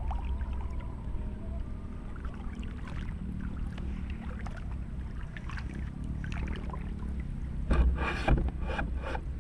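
Steady low wind rumble on the microphone with scattered small clicks and rustles. About eight seconds in come a few loud sudden bursts of noise, two close together.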